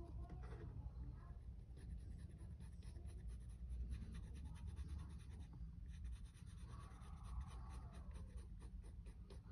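Faint pencil scratching as a straight line is drawn along a strip of floor beading, marking where it will be cut.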